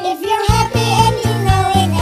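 Children's background music with a steady bass beat and a melody line over it, starting at the beginning.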